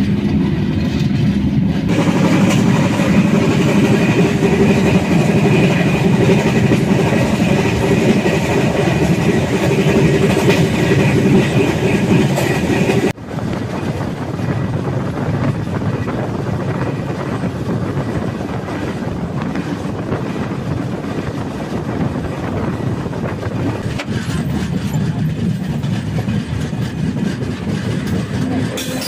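Passenger express train running along the track, a steady loud rumble and rattle of the coaches with a low hum, cut off for an instant about halfway through before carrying on.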